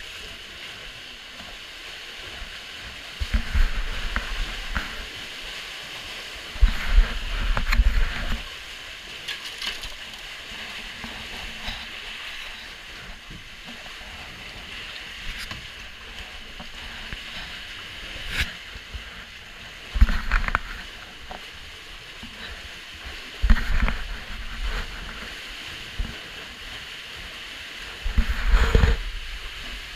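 Kayak paddle strokes and water sloshing and lapping around the hull, with a louder, deep-rumbling splash burst several times.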